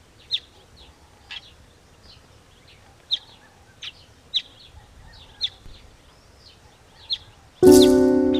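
A small bird giving short, sharp chirps, repeated irregularly about once or twice a second. Near the end, loud music with a sustained ringing chord begins.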